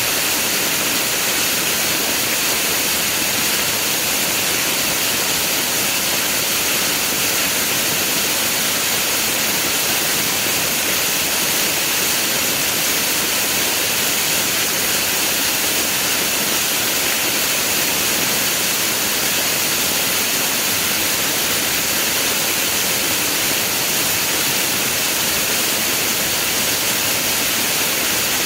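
Waterfall crashing steadily, a constant loud rush of falling water with no breaks.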